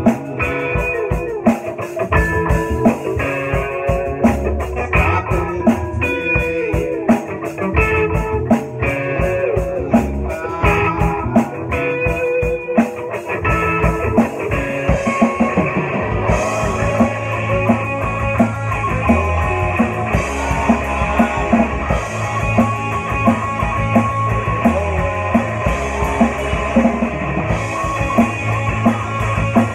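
Rock band playing live: electric guitar and drum kit. About halfway through the playing gets fuller, with heavier bass and cymbals.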